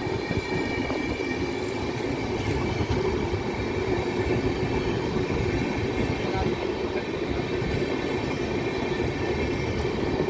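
Coaches of an Indian Railways express passenger train passing close by at speed: a steady, unbroken rumble and rattle of wheels on rails, with a faint high whine above it.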